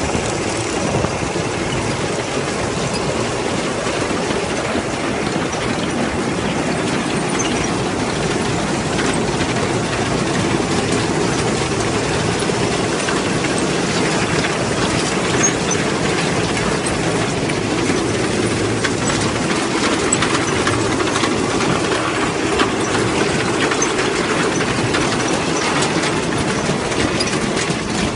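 Tractor-drawn Hennipman potato harvester at work: a tractor engine running under the steady clatter of the harvester's chain conveyors.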